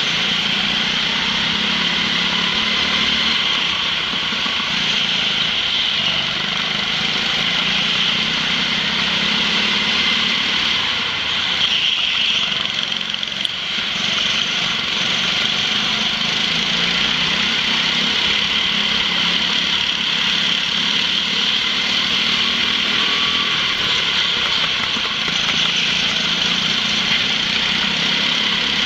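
Go-kart engine running steadily under throttle, heard from on board the kart, with a continuous drone and hiss. The engine note drops briefly a little before halfway, then picks up again.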